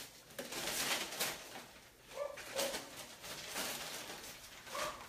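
Puppies scrabbling and rustling at a basket, with a few brief squeaky whimpers.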